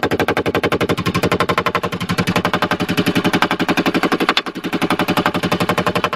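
Hand hammer rapidly tapping a sheet-steel lip that is folded over angle iron, very fast light blows at about a dozen a second, with a brief falter about four and a half seconds in and a sudden stop at the end. The strikes ring metallic as the lip comes down onto the back face of the angle iron.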